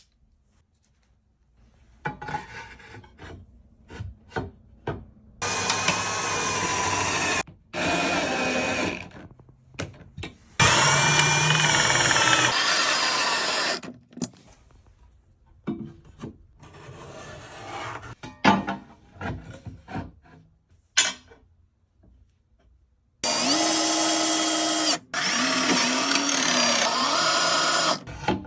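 Power drill running in several bursts of one to five seconds, its motor pitch shifting under load, with clicks and knocks of handling in between.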